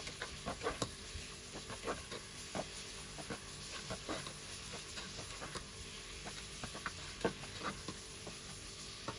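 Sliced onions frying in olive oil in a stone-coated pot, stirred briskly with a spatula: a steady low sizzle under many quick, irregular taps and scrapes of the spatula against the pot.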